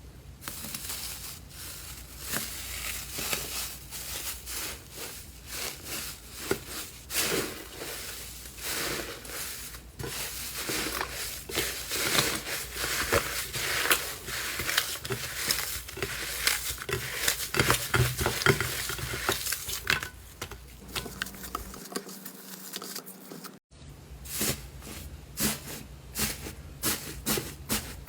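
Slime being squeezed and pressed by hands, making dense crackling and popping clicks. There is a short break about three-quarters of the way through, after which the clicking goes on.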